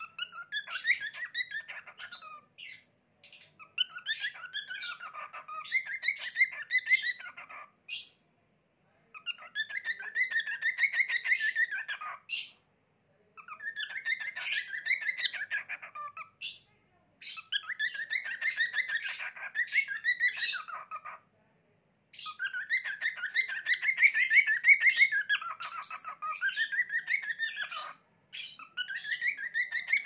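Lutino cockatiel singing: warbling, chattering phrases of a few seconds each, repeated again and again with short pauses between them.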